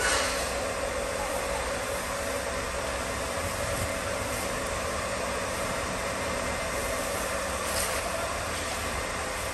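Steady background noise with a faint even hum, broken by a short crackle at the start and another near the end.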